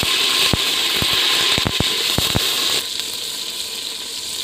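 Sliced eggplant sizzling in hot oil in a pot: a loud hiss with sharp crackling pops as the oil spits around the fresh slices. The hiss drops to a quieter sizzle about three seconds in.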